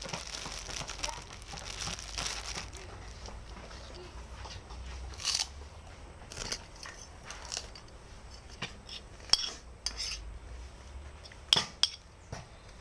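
Someone eating noodles close to the microphone. Sharp clicks and clinks of cutlery against a bowl come scattered through the stretch, after a rustling, crinkling noise in the first couple of seconds.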